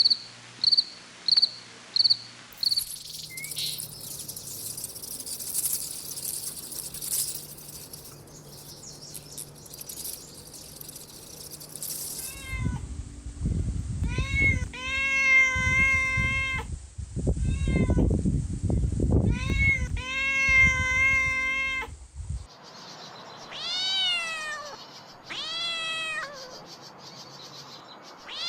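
A cricket chirping about twice a second for the first couple of seconds, then a stretch of high hiss. After that a kitten meows repeatedly: long, drawn-out meows over a low rumble, then shorter meows that fall in pitch near the end.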